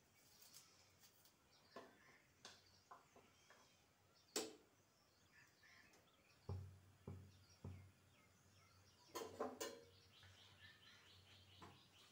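Near silence, with a few faint scattered clicks, three soft low knocks past the middle, and a short cluster of clicks near the end.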